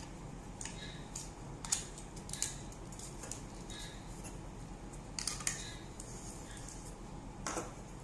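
Hard plastic fountain nozzle pieces clicking and knocking as they are handled, fitted together and set down on a wooden table: scattered sharp clicks, with two close knocks just past five seconds in and a louder knock near the end.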